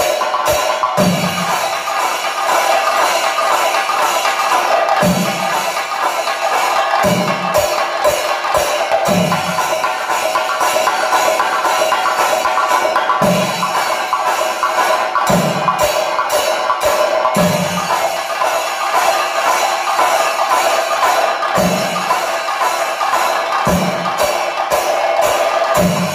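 Thayampaka on Kerala chenda drums played with sticks: a fast, unbroken roll of drumming with deep bass strokes from the accompanying chendas falling at irregular intervals, every one to four seconds.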